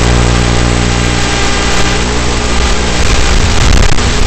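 RC model plane's propeller motor running steadily, picked up by the onboard camera over a constant hiss. The motor note thins briefly a little past three seconds in, then comes back.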